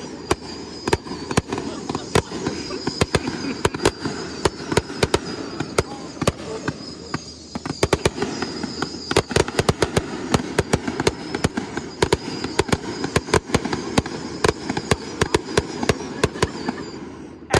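Fireworks finale barrage: aerial shells bursting in rapid, overlapping bangs and crackles, many per second, that ease off only just before the end.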